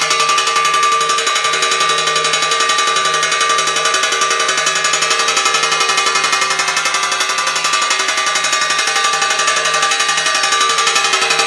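Homemade farm scarer: a 12-volt DC motor drives a striker that beats rapidly and continuously against a large steel plate, making a fast metallic clatter with the plate ringing.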